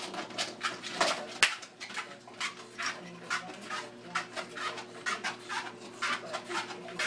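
English bulldog panting hard and snorting while it walks on a running treadmill, with quick, evenly spaced breaths a little under three a second. The treadmill's motor hums steadily underneath.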